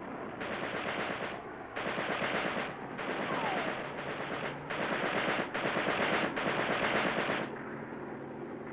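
Automatic weapon fire in about six rapid bursts, each lasting about a second, stopping about seven and a half seconds in.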